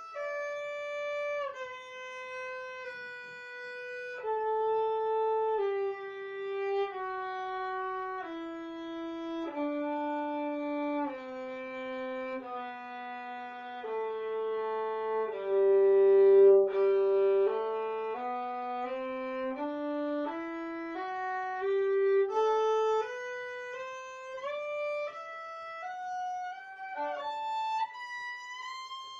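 Violin playing a slow G major scale, about one bowed note per second. It steps down to the low open G near the middle and climbs back up, ending high.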